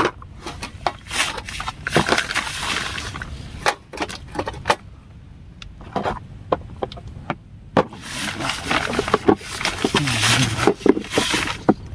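Cooking utensils clattering and scraping, with irregular sharp clicks and knocks and two stretches of hissing noise, as a sauce is set up over a camp stove.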